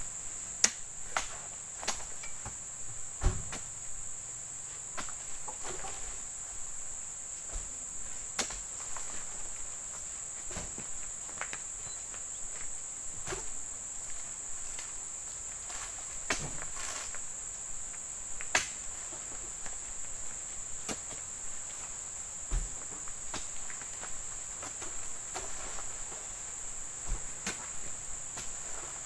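A steady high-pitched insect drone, with scattered knocks and thuds at irregular intervals, the loudest in the first few seconds, as oil palm fruit bunches are speared on a spiked pole and heaved up onto a truck's load.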